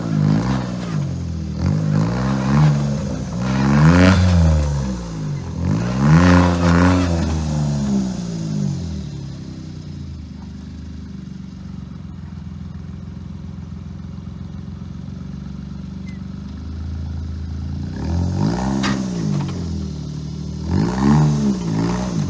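Suzuki Jimny JB23's small three-cylinder turbo engine revved up and down again and again. It then settles to a steady, quieter run for several seconds before revving up and down again near the end.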